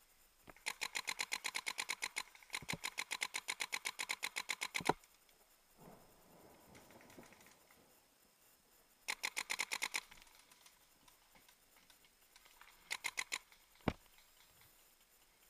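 Paintball marker firing rapid strings of shots at about ten a second: a long string of about four seconds with a brief break, a one-second string about nine seconds in, and a short string followed by a single sharper shot near the end.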